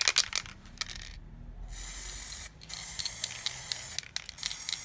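Aerosol can of chrome spray paint spraying, hissing in about four bursts of a second or so with short breaks between them.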